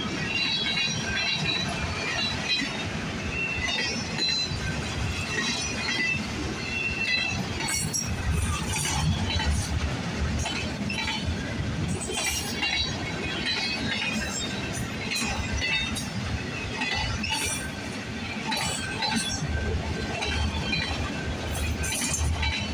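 Freight cars of a passing train rolling by at close range: a continuous clatter of steel wheels on rail, with frequent sharp metallic clinks and clanks from the cars.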